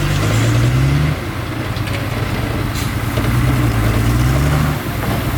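Heavy-equipment diesel engine running and being throttled up: its pitch climbs and falls back about a second in, then climbs again and falls back near the end.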